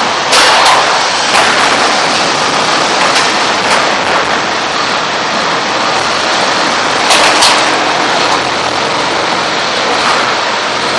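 Combat robots fighting in an arena: a steady loud rush of noise broken by sharp metal knocks, the loudest pair about seven seconds in.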